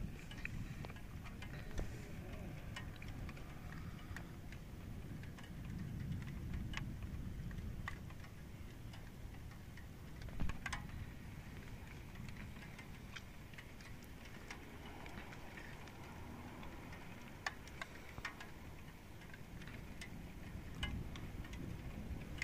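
Outdoor storm ambience: a steady low rumble of wind with scattered light ticks and taps at irregular intervals, and one louder knock about ten seconds in.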